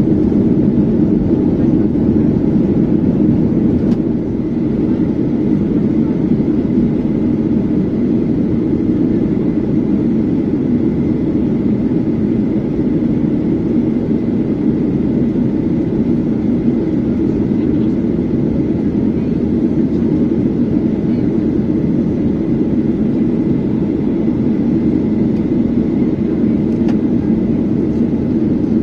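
Steady cabin roar of a Boeing 737-800 in flight, heard from a window seat over the wing: the noise of its CFM56-7B turbofan engines and the air rushing past the fuselage, with a faint steady high whine on top.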